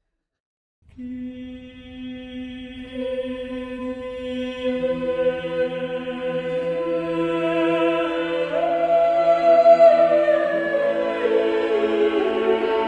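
Sacred choral music that begins about a second in. Long held notes, with further voices entering one after another and the sound swelling.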